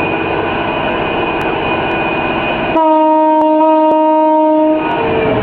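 A Liebherr R9800 mining excavator's machinery running with a dense, loud mechanical din. About three seconds in, a loud steady horn blast of about two seconds on one pitch cuts through it.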